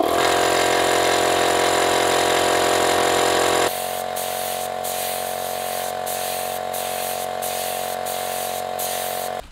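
Electric air compressor running steadily, a motor drone with hiss. About four seconds in it gets quieter, and the hiss of a paint spray gun comes in short bursts about twice a second.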